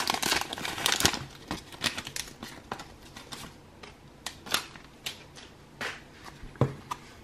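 Pokémon trading cards being handled: the foil booster-pack wrapper crinkles in the first second, then the cards click and tick irregularly as they are slid out of the pack and flicked through by hand.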